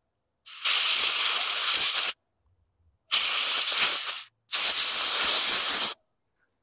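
Three bursts of hissing compressed air, each about a second or a second and a half long, switched on and off abruptly: a blow gun being used to blast water out of a small mower engine's cylinder.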